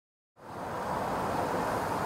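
Steady outdoor background noise, an even hiss and rumble with no distinct events, fading in after a moment of silence.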